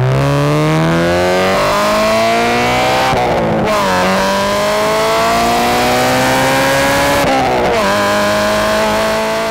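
Car engine accelerating hard through the gears. The engine note climbs, drops at an upshift about three seconds in and again about seven and a half seconds in, climbs again, then starts to fade near the end.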